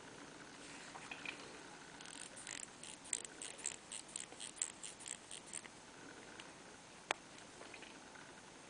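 Crown of a vintage Benrus mechanical wristwatch being turned by hand, its ratchet clicking about four to five times a second for several seconds, then one sharp click later on.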